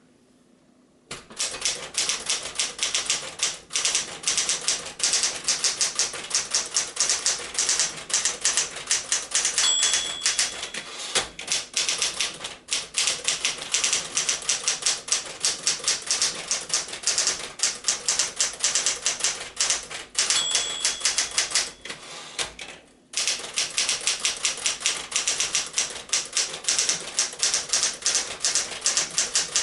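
A 1965 Smith-Corona Galaxie II manual typewriter being typed on fast, with keys and typebars clacking in quick runs from about a second in. Its end-of-line bell dings twice, at about ten and twenty seconds in, each time followed by a short break in the typing.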